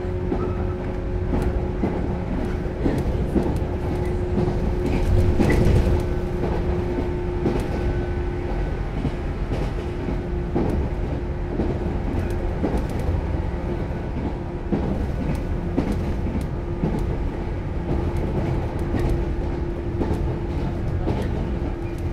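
Running sound inside JR West 115-series motor car KuMoHa 115-1513 cruising at steady speed. A steady traction-motor hum sits over the rumble of the wheels, with wheels clicking over rail joints.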